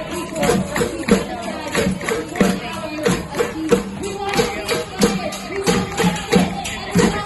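Percussive music with a steady beat of drum strokes and tambourine-like jingles, a few strokes a second.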